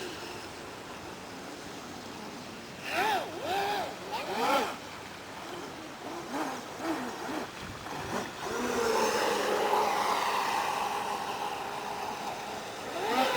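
Brushless electric motor of a 6S LiPo RC boat whining in a few quick rising-and-falling throttle bursts. It then settles into a longer, louder run at speed with a hiss of water spray, running wet from too much negative trim.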